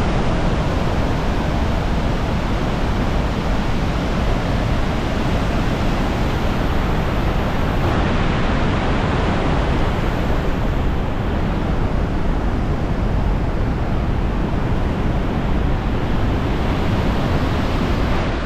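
Iguazu Falls' cascades: a loud, steady rush of falling water, unbroken throughout.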